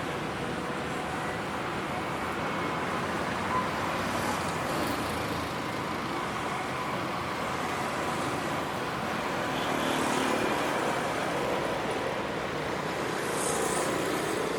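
Steady road traffic: cars and motorbikes passing in a continuous wash of engine and tyre noise, swelling slightly as a vehicle goes by about two-thirds of the way through.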